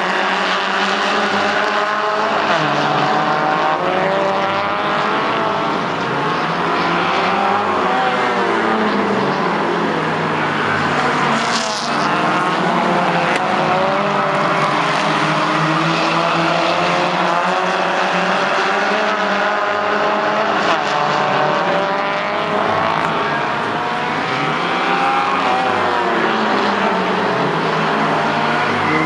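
Several race cars' engines running hard in a short-track oval race, their notes repeatedly rising and falling in pitch as they accelerate down the straights and lift for the turns. There is a brief sharp crack about twelve seconds in.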